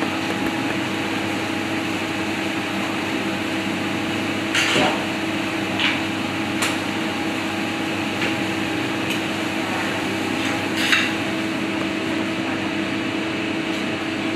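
Steady hum of commercial kitchen ventilation and appliances, with a handful of brief light knocks and scrapes as a microplane grater and utensils are handled on the counter; the loudest comes about eleven seconds in.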